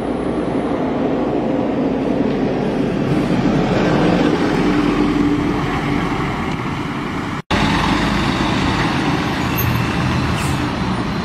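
Road traffic at close range: the engines of a minibus and a truck running as they pass, a steady engine hum over tyre and road noise. The sound cuts out for an instant about seven and a half seconds in and resumes.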